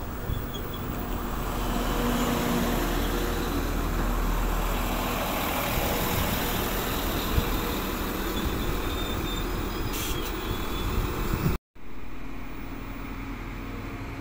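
Northern Class 195 diesel multiple unit running at the platform, a steady drone of its underfloor diesel engines. Near the end the sound cuts off abruptly and a quieter steady hum follows.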